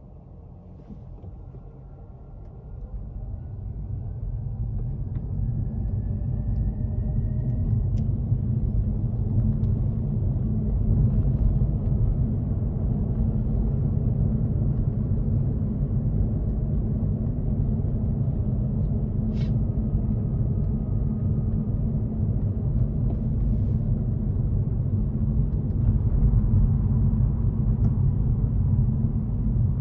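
A road vehicle pulls away and drives on steadily. A low rumble of engine and road noise builds over the first few seconds while a faint whine rises in pitch as it gathers speed, then the rumble holds steady.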